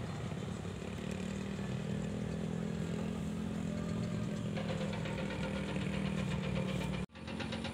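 An engine idling steadily with a fast, even clatter over a low hum. It cuts out briefly near the end.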